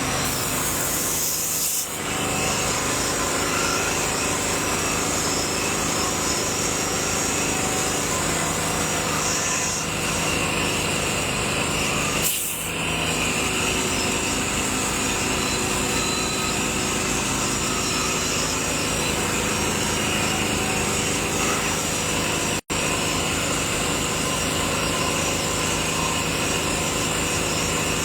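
A small motor or engine running steadily, with a fine, even pulse. The sound cuts out for an instant about three quarters of the way through.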